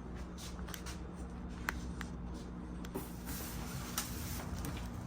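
Scattered light clicks and handling noises from unpacking a new Galanz microwave from its box, over a steady low hum.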